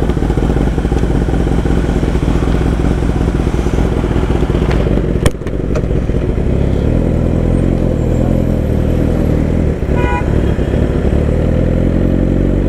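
Kawasaki ZX-10R inline-four engine running steadily under way, with one sharp knock about five seconds in and a brief high tone around ten seconds.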